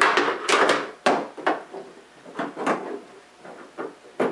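Hard plastic parts knocking and clattering as hydroponic plumbing fittings and rubber-tipped stoppers are handled and pressed into the holes of a plastic lid: a quick cluster of knocks, then single knocks every half second or so.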